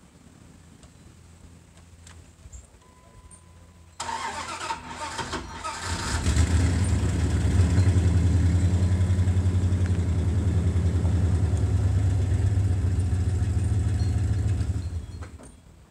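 Dodge pickup truck's engine cranked about four seconds in, catching about two seconds later and running steadily as the truck is moved, then shut off near the end.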